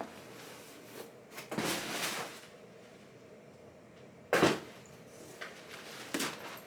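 Packaging being handled while the last item is unpacked: a short rustle about two seconds in, then a sharp knock-like noise about four seconds in and a smaller one near the end.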